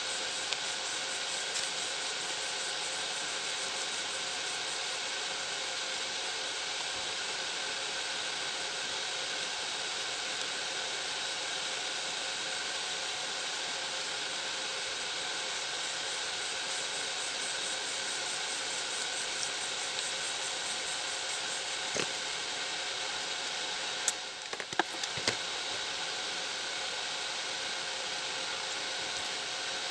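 Steady background hiss with faint steady tones under it, broken by a few light clicks and taps as small plastic parts and tools are handled. Near the end the hiss briefly drops out around a short cluster of clicks.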